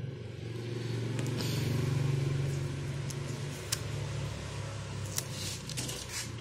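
A low motor-vehicle engine hum that swells to a peak about two seconds in and then fades, with a few sharp clicks from parts being handled.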